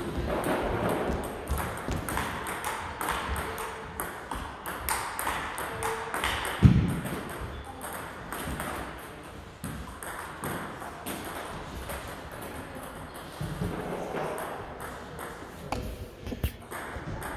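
Table tennis rally: a celluloid-type ball clicking off rubber bats and bouncing on the table in a quick, steady run of sharp ticks. A single low thump about seven seconds in is the loudest sound.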